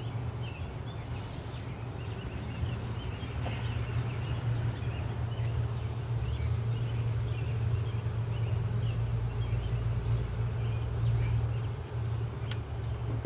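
Steady low hum of a honeybee colony buzzing around the opened hive, with small birds chirping faintly in the background and one sharp click near the end.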